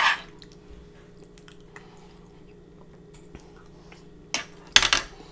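Close-up wet eating sounds of a forkful of saucy noodles being eaten: a short wet burst right at the start and two more about four and five seconds in, with small fork clicks on the griddle between them, over a steady low hum.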